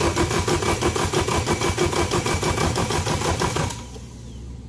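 Honda K24A2 engine being cranked by its starter motor without firing, for a compression test: the starter runs and the engine turns over with a fast, even pulsing. The cranking stops just under four seconds in.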